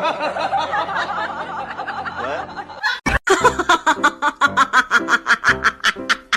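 Laughter: about three seconds of wavering, overlapping voices, then after a short break a fast run of rhythmic laughs, about six a second.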